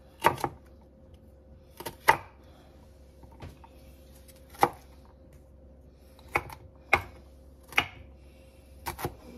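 Kitchen knife chopping celery on a wooden cutting board: about eight sharp knocks of the blade on the board, irregularly spaced, some in quick pairs.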